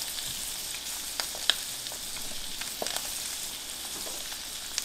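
Atlantic bonito fillets sizzling in hot butter in a cast-iron skillet: a steady high hiss with occasional sharp pops of spattering butter.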